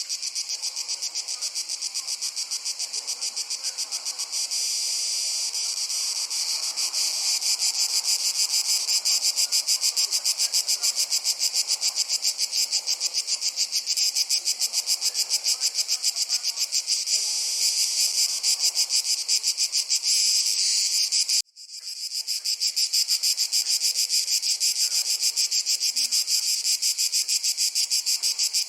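Crickets chirring as one dense, continuous, very fast pulsing high-pitched trill in a summer forest. It cuts out abruptly for a split second about two-thirds of the way through, then swells straight back.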